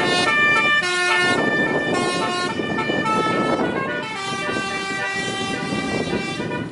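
Telolet horn on a vehicle playing a melody: several pitched horn tones sounding together and changing note in steps, over a steady background of noise.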